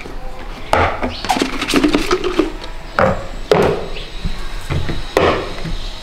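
Plastic containers of a homemade vacuum cleaner knocking and clattering as they are handled, pulled apart and set down on a table, in several separate bursts.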